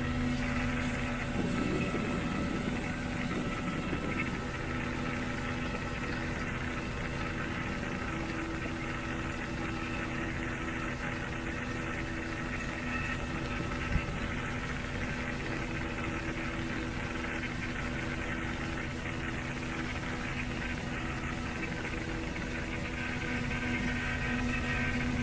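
Mercury outboard motor running steadily at speed under load, towing a banana boat, over the rush of water from its wake. A single short tap about halfway through.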